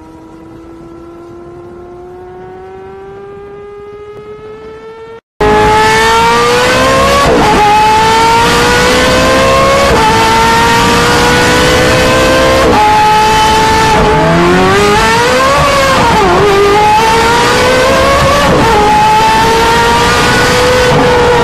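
Porsche Carrera GT V10 accelerating, its note rising steadily. About five seconds in, a much louder Ferrari mid-mounted engine takes over at full throttle, its pitch climbing and then dropping sharply at each of several upshifts.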